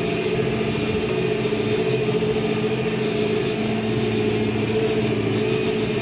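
John Deere 5100E tractor's diesel engine running steadily under load, heard from inside the cab while it drives along a hay windrow pulling a round baler.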